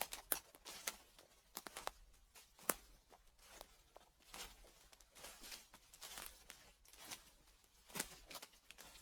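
Footsteps crunching through dry fallen leaves, a slow, uneven walk of roughly one step a second, each step a brittle crackle and rustle with a sharper crunch now and then.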